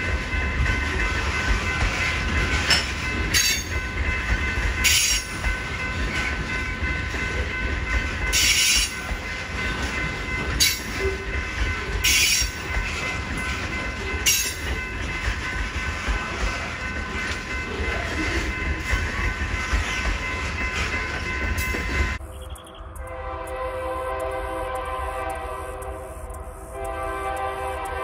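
Loaded freight hopper cars rolling past at a grade crossing: steady wheel and rail noise with a high-pitched ring, and sharp wheel clicks over the rail joints every second or two. About 22 seconds in the sound cuts abruptly to a diesel locomotive's horn sounding.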